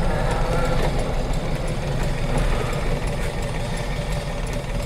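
Air-cooled flat-four engine of a 1965 Porsche 356 C running steadily at low revs as the car rolls slowly, heard from inside the cabin.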